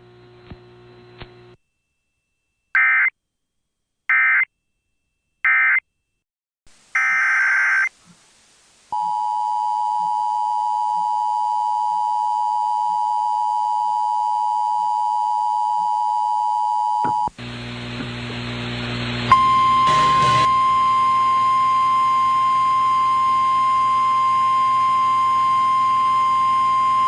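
Emergency Alert System tones: three short bursts of SAME header data, then another burst, followed by about eight seconds of the steady two-tone attention signal. After the two-tone signal cuts off, a hum comes in, and a single steady high tone, the weather radio warning alarm tone, sounds from about two-thirds of the way through.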